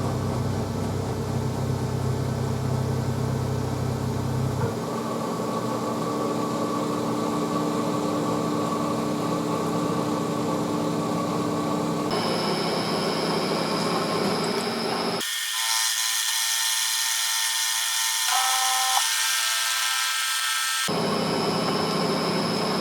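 Metalworking lathe running while machining stainless steel bar stock, a steady machine whir with faint high tones. The sound changes abruptly several times, with a stretch of bright hiss in the middle.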